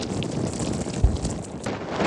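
Blizzard wind rushing over the microphone, with a single low thump about a second in.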